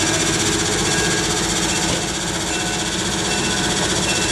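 Diesel engines of a Budd Rail Diesel Car (RDC) running close by, a steady, fast engine clatter with a constant low hum.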